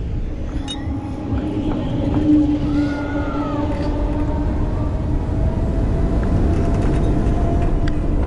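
Fabbri Booster thrill ride in motion, heard from the rider's seat: a steady mechanical hum from the rotating arm's drive under a dense rumble of wind rushing over the microphone, with a brief rising-and-falling whine about three seconds in.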